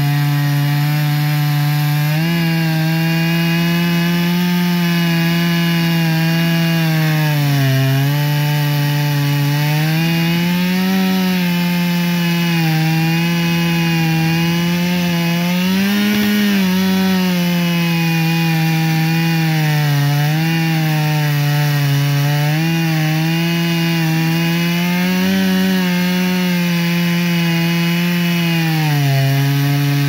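Stihl 661 two-stroke chainsaw running at full throttle while ripping a log lengthwise in an Alaskan chainsaw mill. The engine pitch sags and recovers every few seconds under the load of the cut, with a deeper dip about eight seconds in and again near the end.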